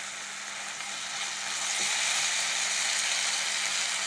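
Spicy sauce of oil, fried spices and a little water sizzling in a hot kadai. The sizzle is steady and gets a little louder about a second and a half in.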